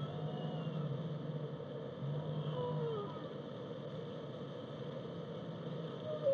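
Whale song recorded underwater, heard faintly: two low moans in the first three seconds and thin higher calls that glide up and down, one falling call a little before three seconds in, over a steady hiss of the sea.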